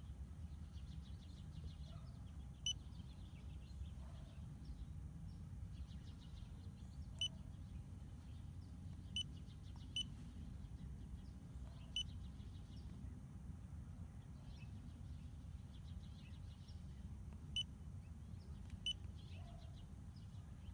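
A handheld diagnostic scan tool beeps briefly seven times at irregular intervals as its buttons are pressed to move through menus and read fault codes. A low, steady rumble of background noise runs underneath.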